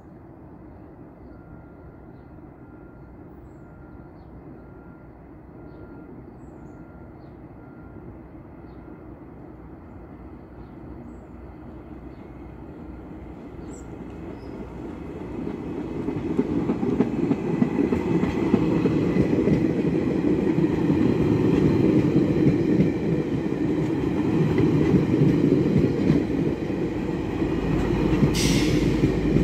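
GO Transit push-pull commuter train of bilevel coaches, pushed by an F59PH diesel locomotive, approaching and passing close by. Its rumble and wheel noise on the rails build steadily and become loud about 15 seconds in. A brief hiss comes near the end.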